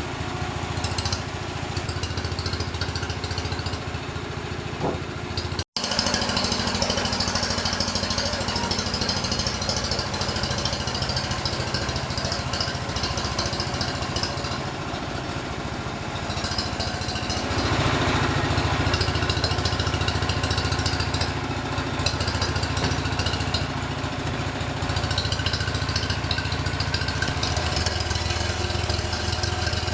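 Sawmill machinery running steadily with a motor-like drone. It grows louder for a couple of seconds past the middle, and cuts out for an instant about six seconds in.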